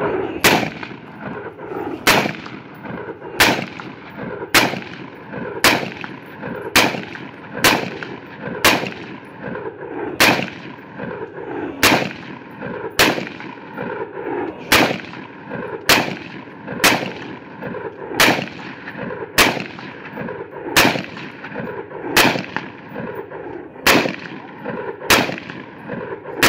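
AR pistol fired in single semi-automatic shots, about twenty-two at an unhurried pace of roughly one a second, each crack followed by a trailing echo.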